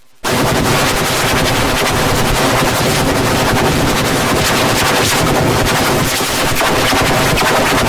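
Loud, harsh distorted noise covering all pitches at once. It runs steadily after a brief cut-out right at the start.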